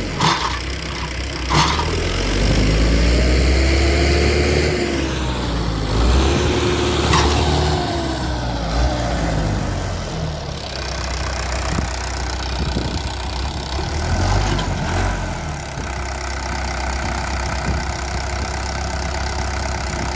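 Tractor diesel engine running under load, its pitch rising and falling over the first ten seconds, then steadier. A few sharp knocks come near the start and about seven seconds in.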